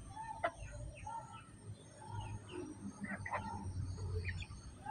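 Bantam chickens clucking in short, soft calls while pecking at scattered feed, with a few sharp clicks and faint high chirps among them.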